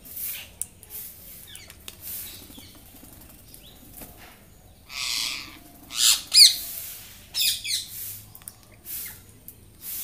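Parakeets' wings flapping in short flurries as birds land on and leave a feeder, with a few harsh squawking calls about six and seven and a half seconds in.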